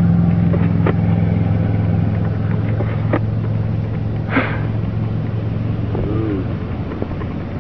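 Steady low hum of an idling vehicle engine that dies away near the end, with a few faint clicks over it.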